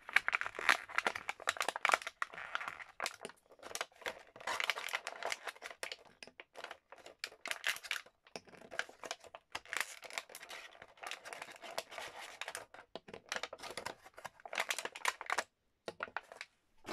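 Clear plastic packaging crinkled and pulled open by hand, an irregular run of crackles and snaps as small self-inking stampers are taken out of it, pausing briefly near the end.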